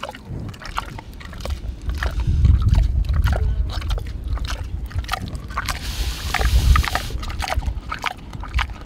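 A large pig chewing and snuffling at a feeding trough close to the microphone: a run of crunching clicks, with two stretches of low rumble about two and a half and six and a half seconds in.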